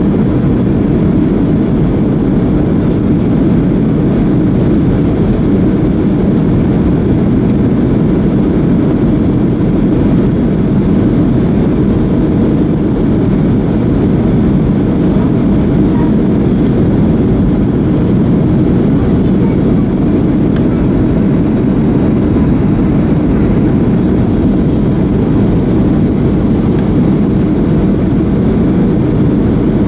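Steady cabin noise inside a Boeing 737-300 in flight: the even rush of its CFM56-3 turbofan engines and the airflow over the fuselage, unchanging throughout.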